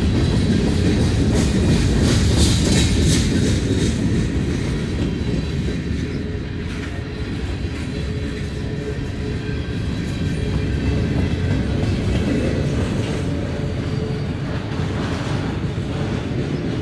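Norfolk Southern freight train's cars rolling past in a steady, heavy rumble, with a quick run of wheel clicks over rail joints a couple of seconds in.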